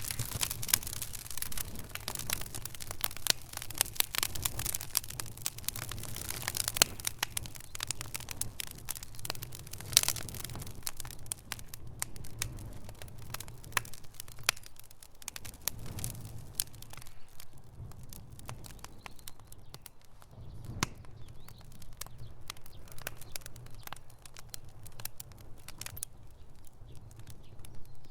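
Campfire crackling and popping: a dense run of irregular snaps that thins out about halfway through, over a low rumble of the burning fire, with a sharper pop near the end.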